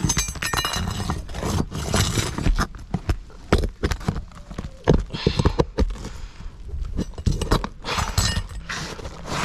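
Roofing nails being worked out from under 3-tab asphalt shingles: irregular sharp knocks and clicks of a tool against nails and shingles, mixed with short bursts of scraping.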